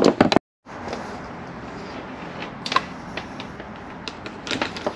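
Light knocks and clicks of handling, scattered over a steady background hiss, with a few sharper knocks at the start and a brief cut to complete silence just after.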